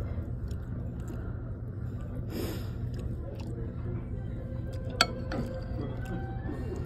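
Table ambience while eating: a steady low hum with faint scattered clatter, a brief hiss about two and a half seconds in, and one sharp tap about five seconds in, the loudest sound.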